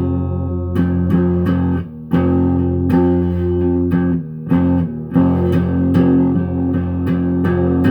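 Guitar being played: a run of plucked notes struck every half second or so, ringing over sustained low bass notes, with a couple of brief breaks between phrases.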